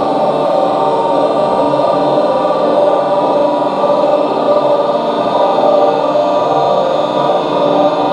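A group of voices chanting a prayer together in unison, in long held tones without a break.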